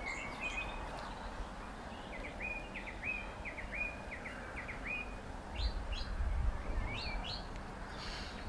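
Songbirds singing outdoors: a quick run of short, repeated high chirps for a few seconds, then a few scattered notes, over a faint steady hiss. A brief low rumble comes in about halfway through.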